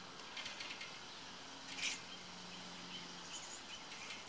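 Faint outdoor background noise with a brief rustle about two seconds in.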